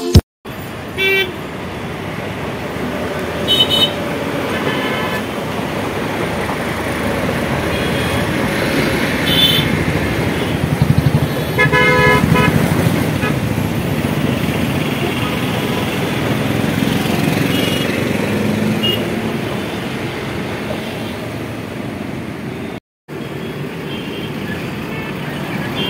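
Road traffic running steadily, with short vehicle horn toots several times. Through the middle a rumble swells and fades as an electric local train (EMU) passes on the tracks below, with a quick run of clacks near its loudest point.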